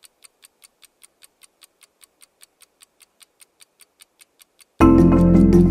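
A clock-like ticking sound effect, sharp and high, about five ticks a second. Near the end a loud, deep musical hit comes in suddenly and rings on.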